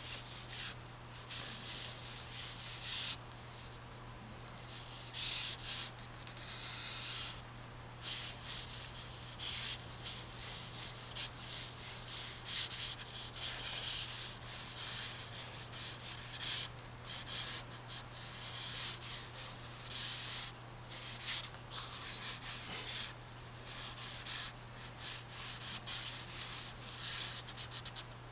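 A dry drawing stick scratching and rubbing across a sheet of paper on a drawing board, in short irregular strokes as lines are sketched. A steady low hum runs underneath.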